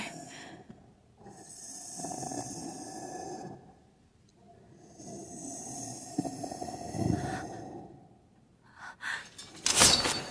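Heavy, rasping breathing in two long breaths, each a couple of seconds long with a harsh hiss. Near the end come a few clicks and a sudden loud whoosh and clatter.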